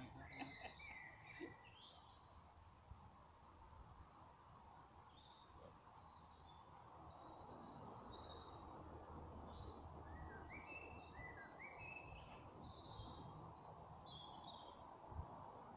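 Faint birdsong: short chirping notes from small birds in the surrounding trees, repeating throughout over a quiet outdoor hush, with a brief low thump near the end.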